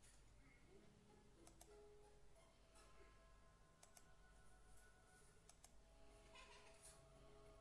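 Near silence broken by a handful of faint, short computer mouse clicks, some in quick pairs.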